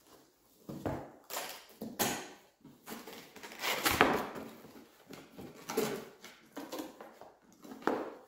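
Cardboard carton being handled and opened: a string of scrapes and rustles as the end flap is pried open and the box is tilted, loudest about halfway through.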